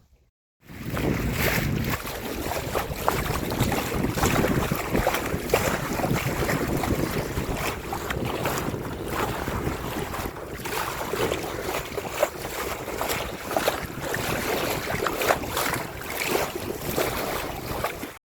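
Wind gusting on the microphone over water rushing and splashing along the hull of a sailing yacht under way, starting abruptly after a brief silence.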